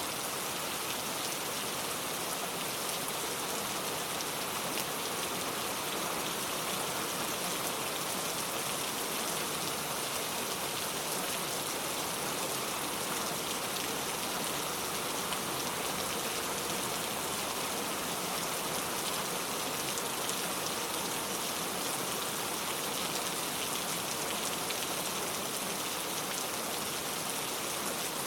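Steady rain falling, a continuous even hiss of pattering drops.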